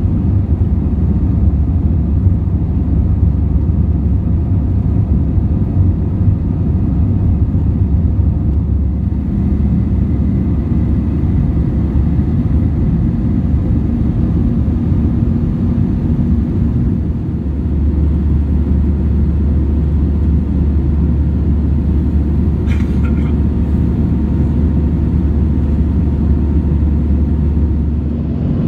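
Steady low cabin rumble of an Airbus A320-200 airliner in flight: engine and airflow noise heard from a passenger seat, with the low drone shifting slightly about 17 s in. One brief click-like sound about 23 s in.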